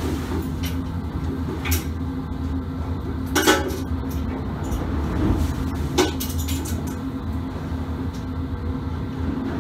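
Steady low drone of a ship's engines and machinery. Over it come a few sharp clicks and knocks from fishing tackle being handled at the rod, three of them, the loudest about three and a half seconds in.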